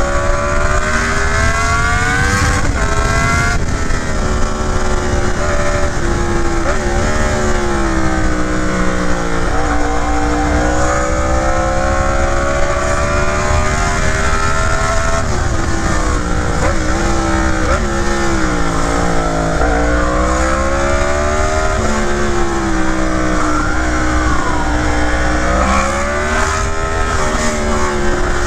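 Yamaha MT naked motorcycle's engine pulling hard. The revs climb and drop back again and again as it accelerates, shifts gears and backs off, over steady wind rush and road noise.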